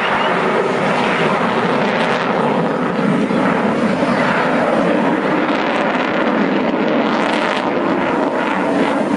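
F-22A Raptor's twin Pratt & Whitney F119 turbofans making steady jet noise as the fighter flies past.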